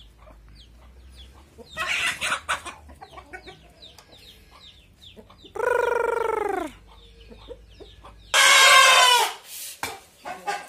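Chickens clucking as they forage, with a burst of louder squawking about two seconds in and a single long rooster crow that falls in pitch about halfway through. Near the end comes a loud, harsh squawk from a rooster held by its legs and flapping its wings.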